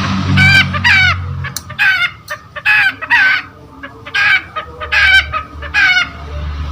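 Long-tailed shrike (cendet) giving a rapid series of harsh, rasping calls, each a short falling note, with a brief pause midway.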